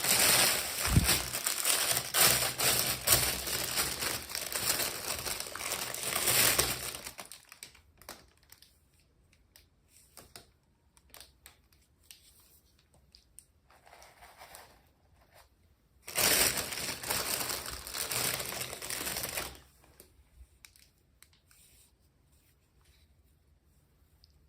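Plastic packaging crinkling as it is handled and opened, in two long stretches with only faint clicks of handling between them.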